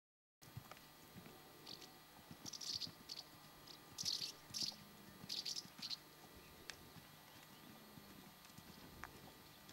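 Faint, soft hoofbeats of a horse trotting on a sand arena. A run of short, high, scratchy sounds comes about two to six seconds in.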